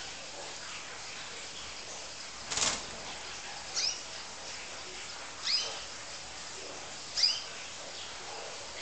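Young fancy canary giving three short, high chirps about one and a half seconds apart, with a brief rustle just before the first.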